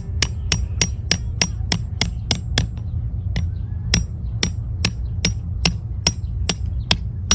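Tent pegs being hammered into the ground: sharp metal-on-metal strikes at about three a second, with a short pause about three seconds in, over a steady low rumble.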